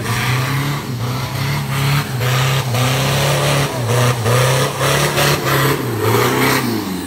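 Off-road 4x4 competition vehicle's engine revving hard under heavy throttle. The revs dip briefly several times as the throttle is lifted and reapplied.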